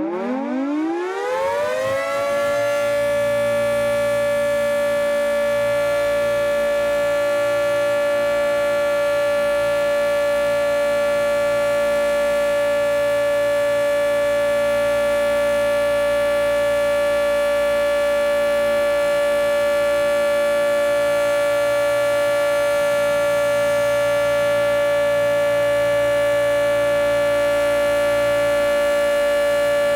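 Federal Signal 2T22 dual-tone electromechanical outdoor warning siren winding up over the first couple of seconds, then holding a steady tone during a siren test. Recorded from very close, so the audio is overblown.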